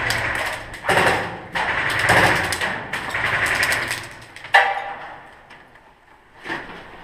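Airsoft rifle firing on full auto in several rapid rattling bursts, followed by a single sharp crack about four and a half seconds in.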